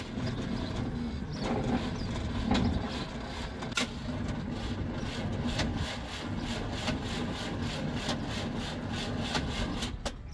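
A 1972 Chevrolet Monte Carlo's starter cranking the engine, which turns over without starting, with even pulses about two or three times a second over a steady hum, then stops suddenly near the end. It sounds "ungood", and the owners take it for a failing starter.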